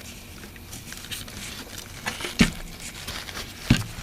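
Handling noise: a few light clicks and ticks, with two sharper knocks a little past halfway and near the end.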